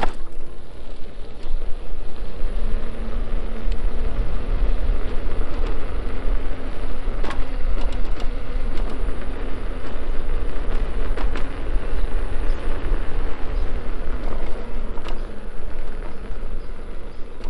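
Begode Hero electric unicycle being ridden over rough asphalt: a steady low rumble of wind and tyre noise, with a faint motor whine under it and three sharp knocks spread through the ride.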